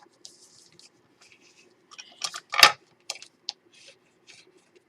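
Paper and chipboard being handled and rubbed at a craft table: light rustling and scratching, a few small clicks, and one sharp tap about two and a half seconds in.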